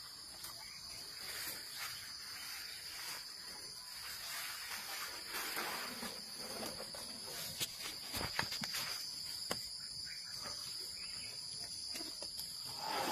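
Steady high-pitched chirring of insects, with a few short crackles and rustles in the grass about halfway through.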